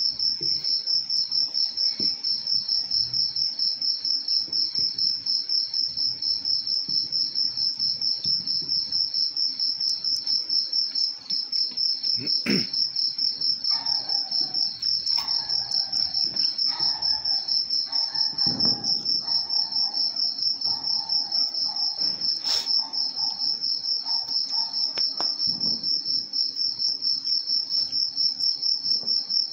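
Crickets chirping in a fast, unbroken, high-pitched trill. A couple of sharp clicks sound over it, one near the middle and one about three-quarters of the way through.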